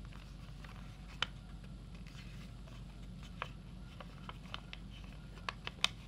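Sheet of origami paper being folded and pressed by hand: scattered short, sharp crinkles and snaps of the paper, most of them bunched near the end, over a low steady hum.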